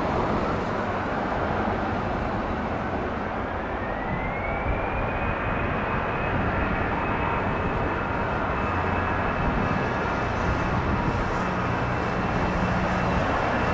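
Airbus A319's jet engines spooling up to takeoff thrust: a whine rises in pitch from about three to five seconds in, then holds as a steady high whine over a low engine rumble.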